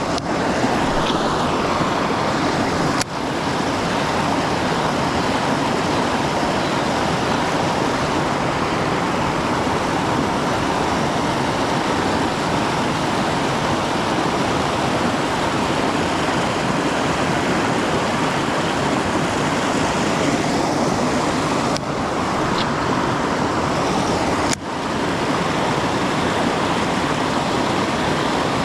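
Creek water rushing steadily over rocks in a riffle, close by, with a few momentary breaks.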